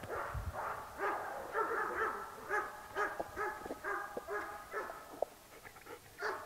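Several excited German shepherds barking and whining in short, high, repeated calls, about two or three a second, stirred up by the thrown ball.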